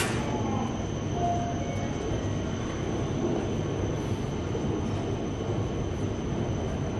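Steady low rumble of railway-station background noise, with a faint thin high whine over it.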